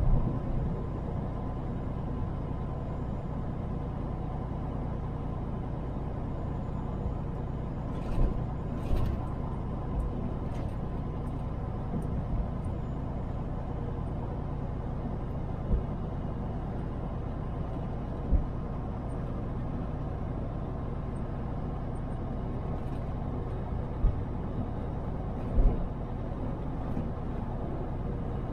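Semi truck driving at road speed: a steady low engine and road rumble, broken by about half a dozen brief knocks.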